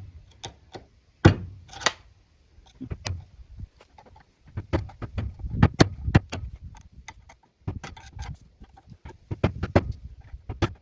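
Irregular metal clinks and knocks of a lathe spindle and tools being handled and worked in a bench vise to get an old bearing off the shaft.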